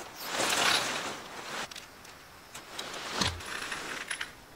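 Large living-shell tent's fabric rustling and swishing as a long tent pole is pulled through it, for about a second and a half, then scattered light clicks and a single knock about three seconds in as the pole and fabric are handled.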